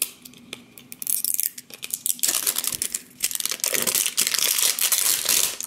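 Thin plastic wrapping being peeled and torn off an LOL Surprise ball: a few light clicks and rustles at first, then steady crinkling and tearing from about two seconds in, with a brief pause in the middle.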